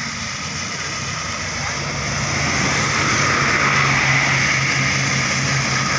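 A large bus driving past: a steady low engine drone grows louder from about two seconds in, over a constant hiss of tyres and road noise.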